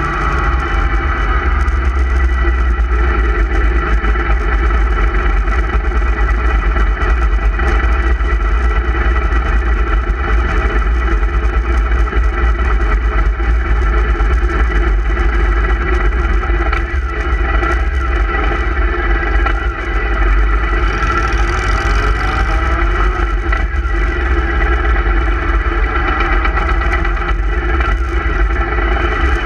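Group of motorcycles riding: steady engine drone whose pitch rises and falls slowly a few times, under heavy wind rumble on the bike-mounted microphone.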